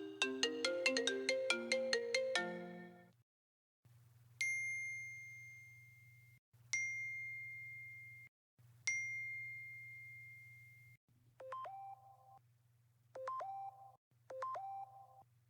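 iPhone sound effects played one after another: a marimba-style ringtone of quick bright notes ends about 3 s in, then three single chime notes about 2 s apart, each ringing and fading like a message alert, then a repeating short two-tone phrase with a quick upward sweep, about one every 1.5 s, like an outgoing call tone.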